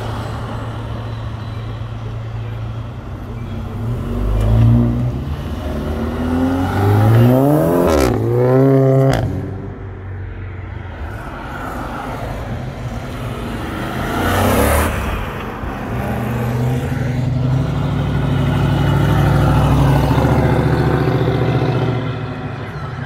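Car engines revving and accelerating away one after another. The loudest run, with the pitch climbing steeply, comes about eight seconds in and breaks off sharply. A deep, steady engine note builds from about sixteen seconds in and fades near the end.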